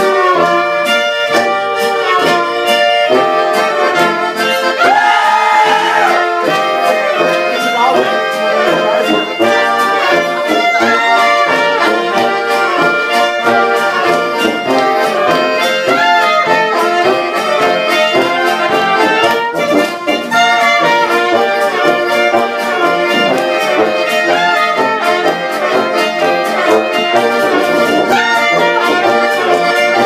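Live German folk band music: trumpet, clarinets, tuba, accordion and acoustic guitar playing an upbeat tune over a steady beat.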